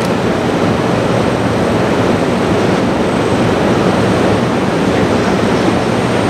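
JR Freight EF65 electric locomotive rolling slowly past while hauling a dead EF64 electric locomotive: a steady, loud rumbling rush of wheels, running gear and blowers, with no pauses or distinct clicks.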